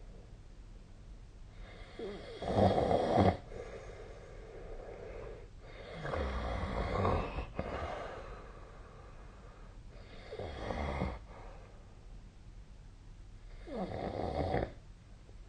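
A sleeping person snoring: four snores roughly four seconds apart, each lasting about a second, the first the loudest.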